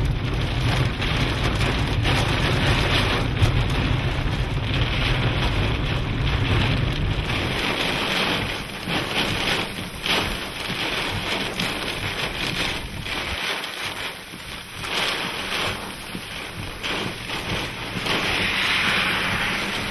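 Heavy, wind-driven rain beating on a car, with gusts buffeting the microphone, from the storm around a large tornado passing close by. A deep rumble under the rain for the first seven seconds or so then drops away, leaving the rain and gusts.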